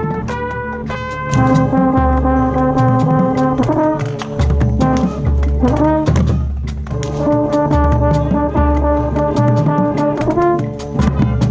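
Marching band music: the brass section plays long held chords, with short rising runs between them, over steady drum strikes from the percussion section.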